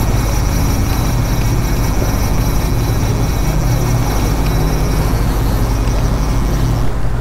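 Twin Yamaha 150 outboard motors running steadily at trolling speed, a constant low drone with the wake's churning water rushing behind the boat.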